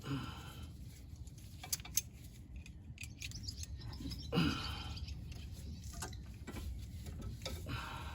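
A few light metallic clicks and clinks as the Honda CR-V's brake caliper and its parts are handled and hung up, with a short hum-like vocal sound about four seconds in.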